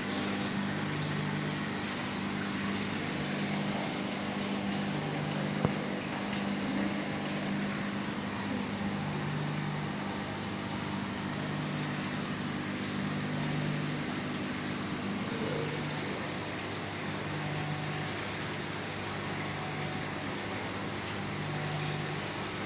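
Steady hum and hiss of running equipment in an aquarium hall, such as pumps and air handling. Two low hum tones pulse on and off in turn every second or two over a constant hiss, and there is one sharp click about six seconds in.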